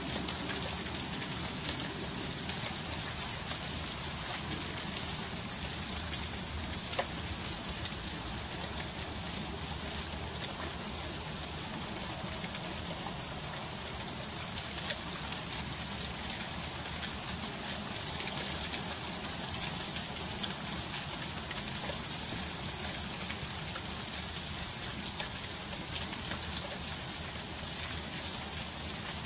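Freezing rain falling steadily during an ice storm: a constant fine hiss, dense with tiny ticks of drops and ice pellets striking surfaces, with a few sharper ticks now and then.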